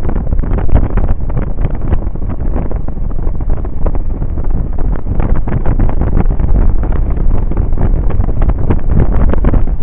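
Loud wind buffeting on the microphone of a Suzuki Burgman 650 maxi-scooter riding at road speed, a constant irregular gusty rumble with the vehicle's running noise underneath.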